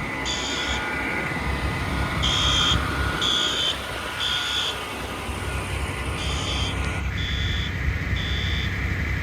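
Building fire alarm horns sounding the temporal-three evacuation pattern: three short buzzing blasts about a second apart, then a pause, repeated. A low vehicle engine rumble runs underneath and grows louder about seven seconds in.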